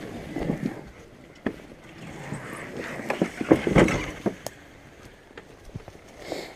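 A canoe on a portage cart being hauled over a rough forest trail: irregular knocks, rattles and scraping, loudest in a dense cluster about three to four seconds in.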